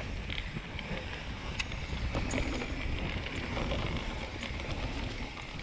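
Rocky Mountain Altitude full-suspension mountain bike rolling down a dry dirt singletrack: wind buffets the microphone in a steady low rumble, with tyre noise and a few sharp ticks and rattles from the bike.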